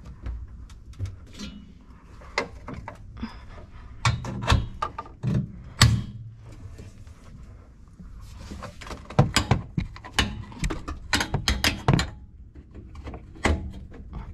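Steel 4WD rear drawer unit clunking and knocking as it is lowered and pushed by hand. Sharp clicks come as the gas struts are pressed onto their ball-stud mounts. The knocks come in irregular clusters, loudest about six seconds in and again from about nine to twelve seconds in.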